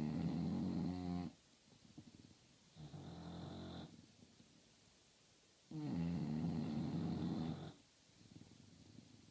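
English bulldog snoring in its sleep: two long, loud rattling snores, one at the start and one about six seconds in, with a softer snore between them.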